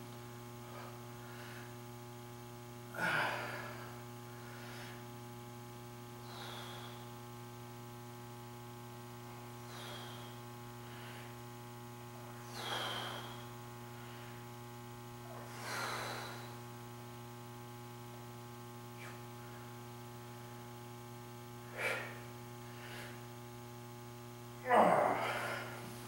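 A man breathing out hard every few seconds while pressing dumbbells on an incline bench, with a louder burst of breath and effort near the end as he sits up with the weights. A steady electrical mains hum runs underneath.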